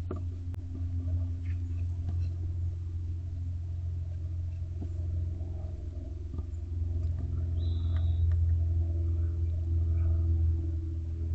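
A steady low hum or rumble, with a short, faint high-pitched note at about two thirds of the way through.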